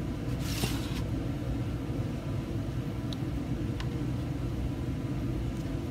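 Steady low background hum, with a brief rustle of a paper circle being handled about half a second in and a couple of faint ticks later on.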